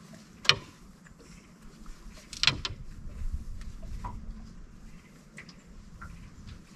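Handling noise on a fishing boat as a crappie is taken off the hook: two sharp knocks, about two seconds apart, with a few fainter clicks and a low rumble.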